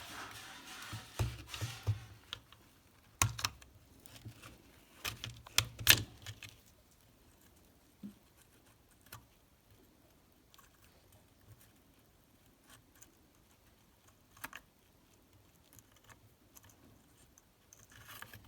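Small plastic locking pieces being pried out of a Chevrolet Cruze seat-belt mechanism with a metal screw: a run of sharp clicks and rattles, loudest about three and six seconds in, then only an occasional tick.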